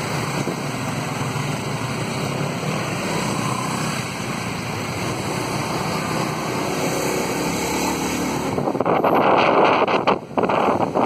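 Steady road and engine noise from riding a motorbike through busy street traffic, with wind rushing over the microphone. From about nine seconds in the wind grows louder and buffets in gusts, cutting in and out.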